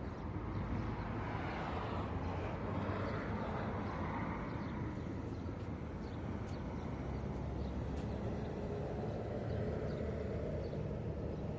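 Steady low background rumble of the open air, with no single event standing out.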